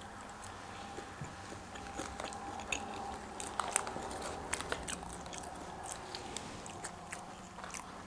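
A person chewing and biting into food, with scattered faint crunches and small mouth clicks.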